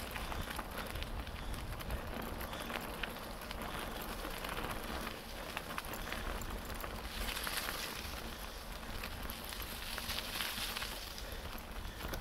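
Bicycle tyres rolling over a leaf-strewn woodland track: a dense crackle of dry leaves and grit under the wheels over a steady low rumble, turning hissier for a few seconds past the middle.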